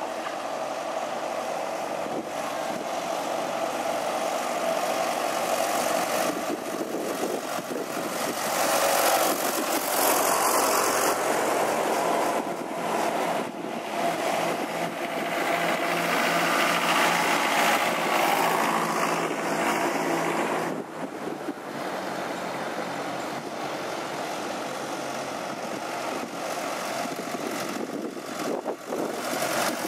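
Vintage farm tractor engines running as the tractors drive past one after another, louder for a while in the middle as one passes close.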